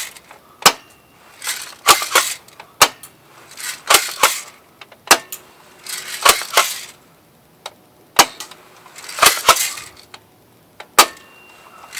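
Mossberg M590 airsoft pump shotgun being fired repeatedly: about a dozen sharp snapping shots and clacks at irregular intervals, with short rattling stretches between them from the pump action being worked.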